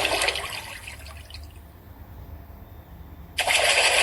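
Water rushing and splashing, loud at first and fading after about a second and a half, then rushing loudly again near the end.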